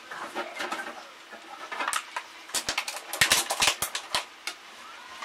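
Wooden spatula knocking and scraping against a metal frying pan as cabbage is stir-fried: irregular clicks and knocks, thickest about three to four seconds in.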